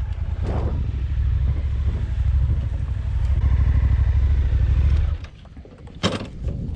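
Motorcycle engine running at low speed with a rapid, pulsing low rumble as the bike is ridden down a rough off-road slope. The engine sound drops away about five seconds in, and a short clatter follows about a second later.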